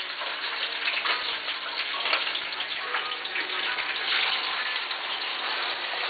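Chicken wings frying in hot oil in a skillet: a steady sizzle with many small crackles and pops of spattering grease.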